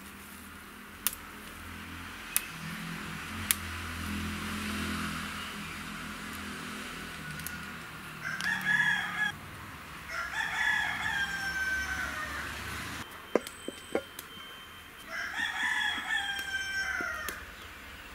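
Rooster crowing three times in the second half, each crow one to two seconds long, with a few short sharp ticks between them.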